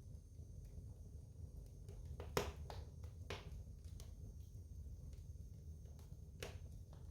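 Wood fire burning in a fireplace: a soft low rumble of the flames with scattered sharp crackles and pops from the burning logs, the loudest pop about two and a half seconds in.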